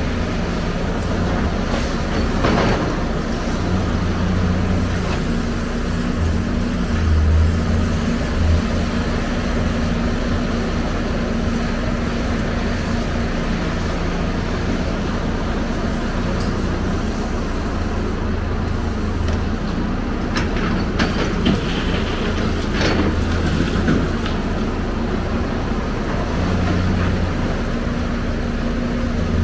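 Hyundai crawler excavator's diesel engine working under hydraulic load, a steady low drone that swells and eases as the machine moves. Sharp clatters of brick and concrete rubble come near the start and a few times about two-thirds of the way through.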